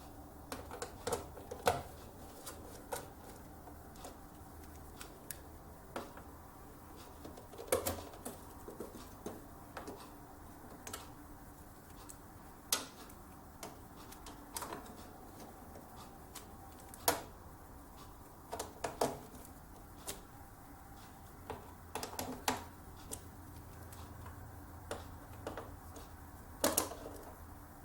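Screwdriver working the motherboard's mounting screws: small irregular clicks and taps of metal on metal as the screws are tightened down, coming a second or a few seconds apart, over a faint steady low hum.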